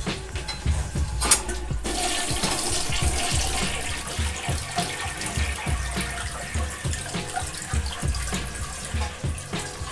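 Household 1.6-gallon toilet flushing: a sharp click about a second in, then water rushing into the bowl and draining, continuing steadily.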